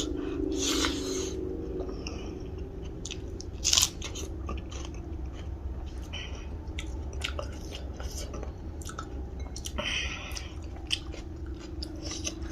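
A person chewing a mouthful of rice and rayo mustard greens close to the microphone: wet mouth sounds and small crunches, with a few louder bites.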